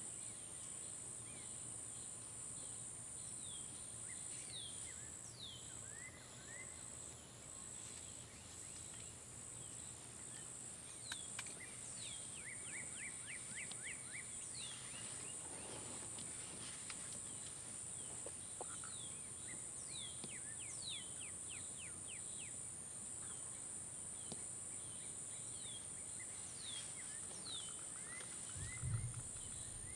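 Outdoor ambience: a steady high-pitched insect drone with many short, falling bird chirps and a quick trill of repeated notes partway through. A brief low thump comes near the end.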